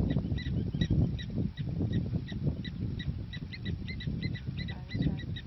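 A bird calling with short, repeated high chirps, two to four a second, quickening a little past the middle, over a steady low rumble.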